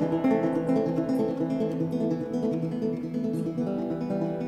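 Background music: acoustic guitar playing a steady run of plucked notes.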